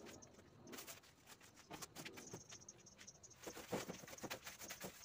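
Faint scrapes and light taps of a long-handled broom brushing cobwebs off the underside of a corrugated metal roof, a little louder and busier past the middle.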